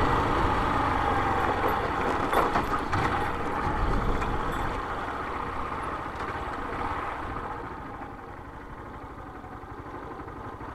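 Motorcycle running along a loose gravel dirt road, with engine, tyre and wind noise, and a couple of sharp clicks a few seconds in. The sound fades steadily as the bike slows toward a stop near the end.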